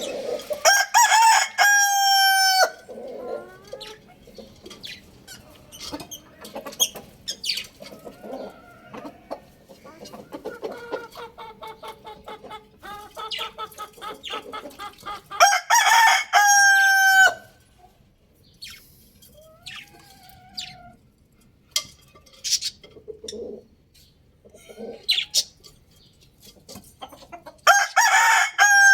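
Young rooster crowing three times, about every thirteen seconds, each crow about two seconds long and ending on a held note. Clucking and small bird chirps fill the gaps between the crows.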